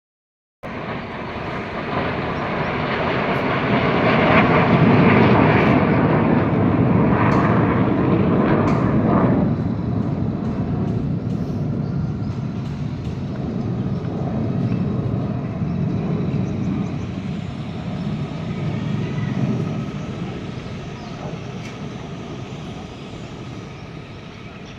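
Jet aircraft flying past, Surya Kiran BAE Hawk Mk132 trainers. Their roar comes in suddenly after a moment of silence, swells to its loudest around five to nine seconds in, then slowly fades away.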